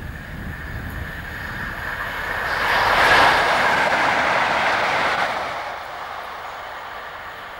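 Four coupled Class 20 diesel-electric locomotives with English Electric eight-cylinder engines running past as a light-engine move. The engine and wheel noise builds as they approach, is loudest about three to five seconds in as they pass, and fades as they draw away.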